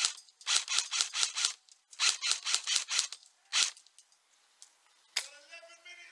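Airsoft rifle firing in quick strings of sharp shots, about seven a second: two strings of about a second each, then a single shot. A sharp click follows near the end.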